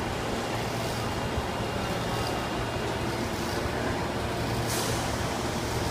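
Osaka Metro 22 series subway train running with a steady low hum, with a short burst of air hiss about five seconds in.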